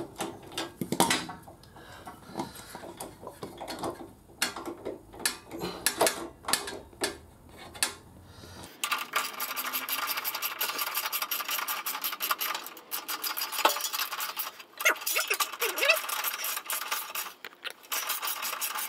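Metal tools and fasteners clinking and knocking, then a socket ratchet being cranked back and forth in a fast run of rapid clicks, running nuts and bolts down on the motorcycle's engine before they are torqued.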